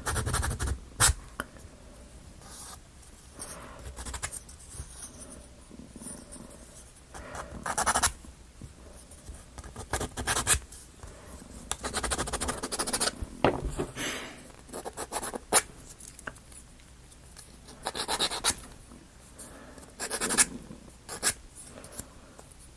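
Laser-cut plywood pieces of a UGEARS model kit being handled and fitted together: irregular sharp clicks and taps with stretches of scraping and rubbing, wood on wood.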